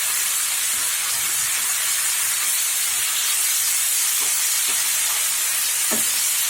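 Food frying in a hot pan: a steady sizzle of oil and moisture on the hot surface.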